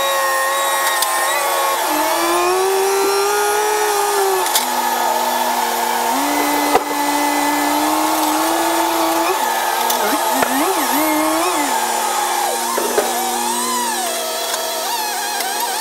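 Grapple truck's engine and hydraulic log loader, sped up in a time lapse: a high, motor-like whine that holds, steps and glides up and down in pitch as the loader works. It wavers quickly up and down for a couple of seconds past the middle.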